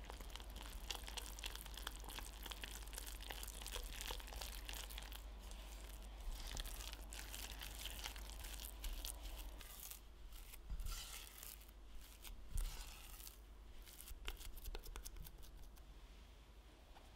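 A spatula beating flour into hot butter and water in a metal saucepan to make choux pastry dough. It is a dense crackling and scraping at first, then thins after about ten seconds into separate scrapes and knocks against the pan as the dough comes together.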